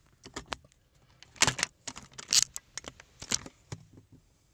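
Handling noise of a phone being fitted into a window-mounted car phone holder: a string of plastic clicks and knocks, three louder ones about a second apart.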